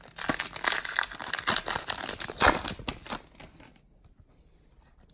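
Plastic wrapper of a Panini Prizm basketball card pack being torn open and crinkled: dense crackling for about four seconds that stops near the end.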